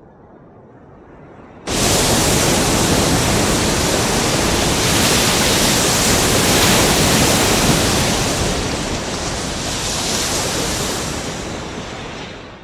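Loud, even rushing noise, like wind or surf, that starts abruptly about two seconds in, holds steady and eases off near the end.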